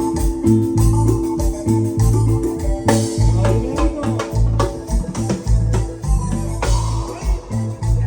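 Instrumental passage of a cumbia song: an electronic organ-style keyboard holds and plays the melody over a steady, repeating bass beat and percussion.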